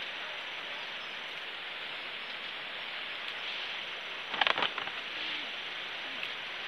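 Chilli plants rustling as red chillies are picked off by hand, over a steady hiss, with a brief cluster of sharp snaps and clicks about four and a half seconds in.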